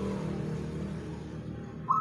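Zebra dove (perkutut) cooing: a call of quick stuttering notes starts near the end, over a low steady hum.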